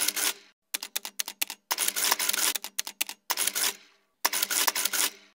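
Sound effect over an animated logo: rapid clicking and scratchy strokes in several separate bursts, each up to about a second long, with short silent gaps between them.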